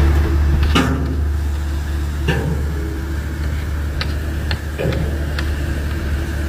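Heavy diesel engine of paving equipment running with a steady low rumble, with a few short clanks and knocks scattered through it.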